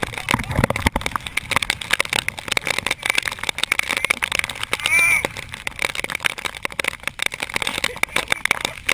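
Storm rain and wind striking the camera: a dense, irregular crackle of drops hitting the housing and microphone. A short, high call sounds once about five seconds in.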